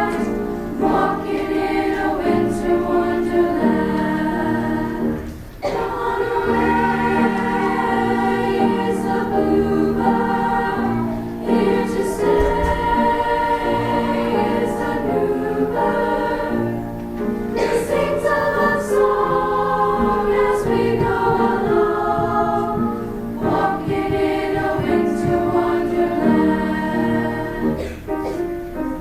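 Women's choir singing in sustained, many-voiced phrases, with a short break between phrases about every six seconds.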